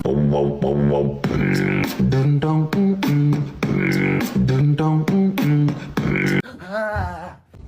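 Comic 'screaming chicken' sound edit: short, loud pitched calls stepping through a tune in a steady rhythm, ending in a wavering, warbling squawk about seven seconds in.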